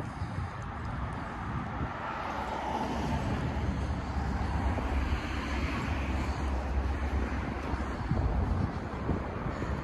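Steady rumble of vehicle traffic that swells over the first few seconds and eases slightly near the end.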